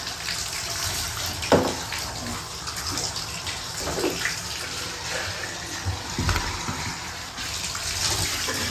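Water running and splashing in a bathtub while a puppy is washed, with a sharp knock about one and a half seconds in and a few softer splashes later.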